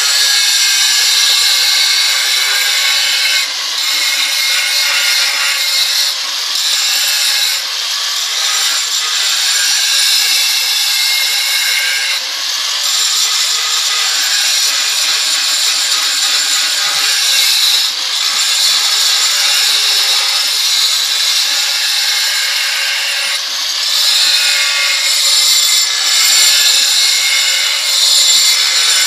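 Angle grinder with a 125 mm diamond combination blade grinding the edge of a granite slab: a continuous, loud, high grinding noise with brief dips in level every few seconds.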